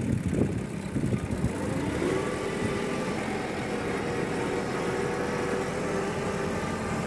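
Tractor engine running under load as it pulls a field roller. The first two seconds are uneven rumbling and knocking; then the engine rises slightly in pitch and settles into a steady drone.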